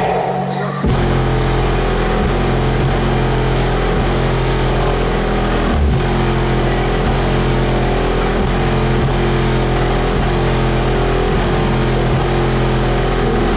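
A VAZ-2170 (Lada Priora) car audio system driven to full volume for a sound-pressure-level measurement. It plays a steady deep bass note with a harsh buzz spread over it, starting about a second in and stopping near the end. The run measured 147.64 decibels.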